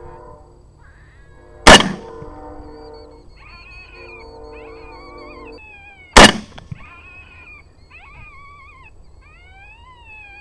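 Two rifle shots about four and a half seconds apart, each a sharp loud crack. Between and after them runs a wavering, howl-like wailing call that slides up and down in pitch.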